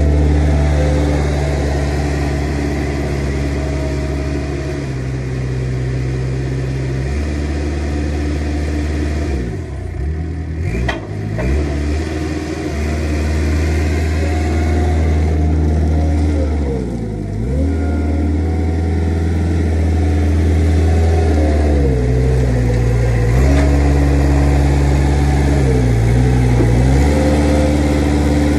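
Diesel engine of a Manitou truck-mounted forklift running steadily, its revs dipping briefly and coming back up several times.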